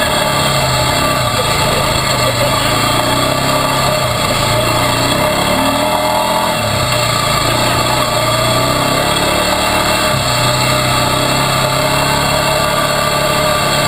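ATV engine running under way on a dirt trail, its pitch rising and falling a little with the throttle.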